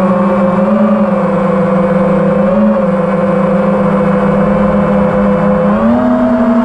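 FPV quadcopter's brushless motors whining at a steady speed, the pitch wavering slightly and rising about six seconds in.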